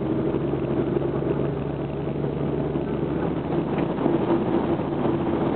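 Engine and road noise of a moving road vehicle heard from inside the cabin: a steady drone with a constant hum.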